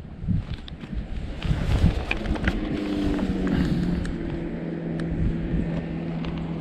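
A motor vehicle engine running, its pitch dropping about three to four seconds in and then holding steady. Irregular low bumps on the microphone come before it.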